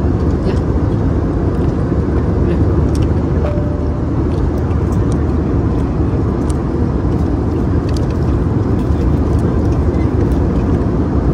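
Steady low rumble of a jet airliner's cabin in flight, with a few faint clicks of plastic cutlery on the meal tray.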